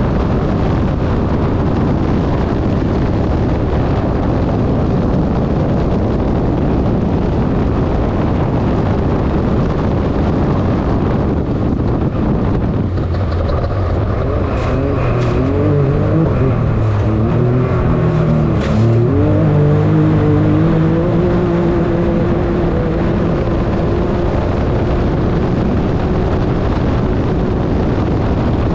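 Onboard sound of a turbocharged Can-Am UTV running hard on a dirt track, with a steady rush of wind and road noise over the microphone. About halfway through, the engine note comes through clearly and wavers up and down for several seconds as the throttle changes, with a few sharp clicks.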